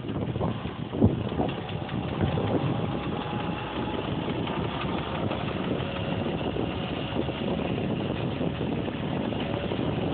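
Small moped engine running steadily, its pitch drifting a little. There are a couple of sharp knocks in the first second or so.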